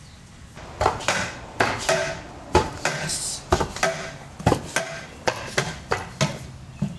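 Pogo stick bouncing on the lawn: a string of sharp clanks and knocks, roughly two a second, some with a brief metallic ring.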